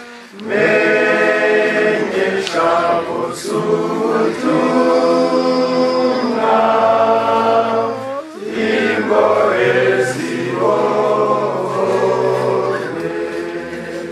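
A choir singing a hymn in several voices, with a short break between phrases about eight seconds in.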